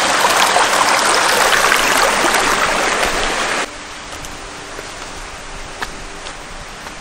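Shallow rocky stream running, a loud steady rush of water. A little over halfway through it cuts off to a much quieter outdoor background with a few faint ticks.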